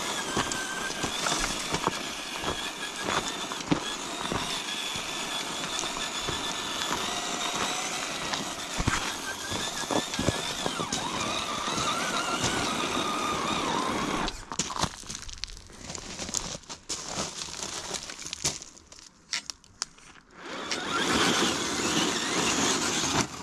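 Axial Early Bronco RC crawler's electric motor and gearbox whining as it crawls, the pitch rising and falling with the throttle, with tires crunching and clicking over the terrain. About fourteen seconds in, the whine drops away to scattered clicks and scrapes, then the running picks up again near the end.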